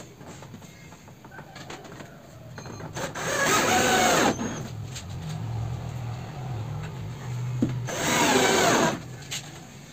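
Cordless drill driving screws into a plywood panel: two bursts of the motor, about a second each and some four seconds apart, the pitch curving up and down as it runs.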